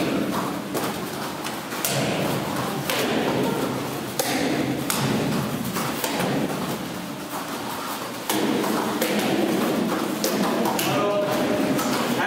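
Irregular thuds and slaps of bare feet stamping and striking on training mats as taekwondo students perform their techniques, with voices in the hall.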